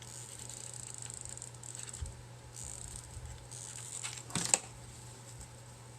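Soft rustling and rubbing of rope being wrapped around a clay pot, with small ticks and one sharp click or knock about four and a half seconds in, over a low steady hum.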